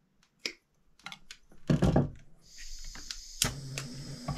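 Pliers and tools clicking and knocking against a wooden workbench, loudest a little before halfway, then a butane torch hissing steadily from about halfway through, with a couple of sharp clicks over it.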